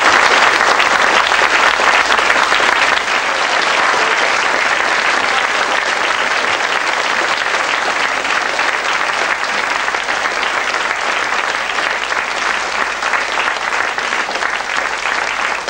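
Audience and costumed cast applauding: a long, dense round of hand-clapping, loudest in the first few seconds and then steady.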